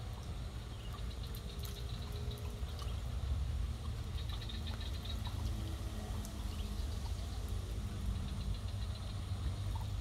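Outdoor ambience dominated by a steady low rumble of distant road traffic. Short bursts of rapid, high chirping calls come twice in the middle.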